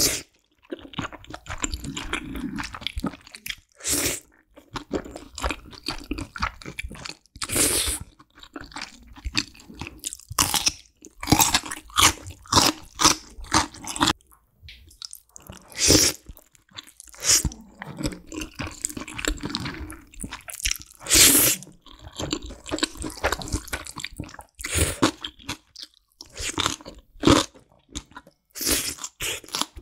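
Close-miked chewing and crunching of big mouthfuls of black bean sauce noodles and kimchi, a run of sharp, irregular crunches and wet bites.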